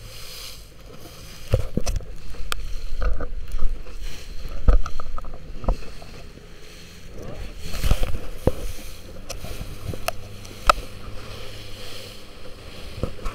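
A small boat moving through choppy water, with water splashing against the hull and irregular knocks and thumps as it meets the waves.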